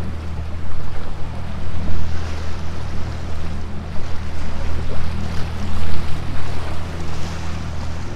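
Small skiff's outboard motor running at a steady speed, a constant low hum, with water rushing and splashing along the hull as the boat moves through the water.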